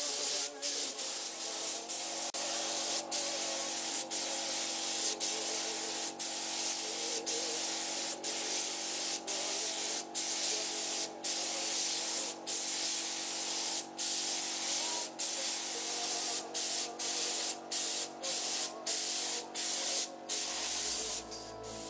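Paint being sprayed: a loud hiss in bursts with brief breaks about once a second, as the trigger is released and pressed again.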